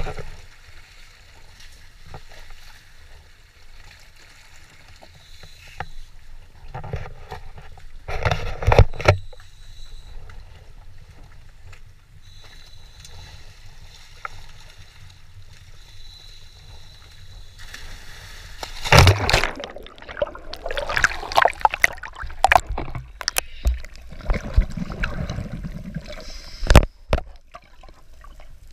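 Wind and handling noise with a few loud knocks on a boat deck, then a loud splash about two-thirds of the way through as a scuba diver drops into the sea, followed by water sloshing and gurgling around the camera.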